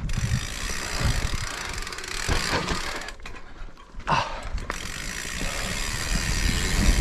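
Mountain bike rolling down a dirt forest singletrack: continuous tyre and trail noise with knocks and rattles from the bike over roots, and the rear hub's freewheel clicking as it coasts. It goes briefly quieter about three seconds in.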